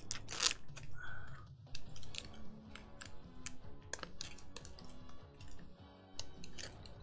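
Foil trading-card pack wrapper being torn open and crinkled, an irregular run of sharp crackles and rustles, loudest in the first couple of seconds, followed by the cards inside being handled; quiet background music underneath.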